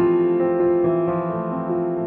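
Background music: piano or electric piano playing slow sustained chords.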